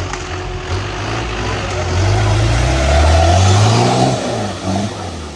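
Off-road 4x4's engine revving hard, its pitch climbing over a couple of seconds and then dropping away about four seconds in, with a heavy rushing noise underneath.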